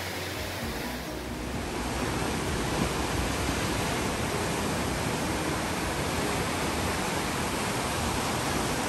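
Surf breaking over rocks and washing along the shore: a steady rushing noise that gets a little louder about a second in.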